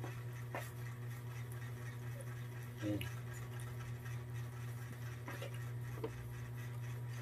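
Quiet mealtime sounds: a few soft clicks and taps of a spoon in a metal rice pot and of plates, over a steady low hum.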